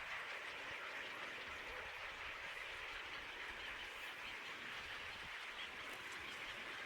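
Steady outdoor nature ambience, an even hiss strongest in the upper-middle range, with faint bird sounds.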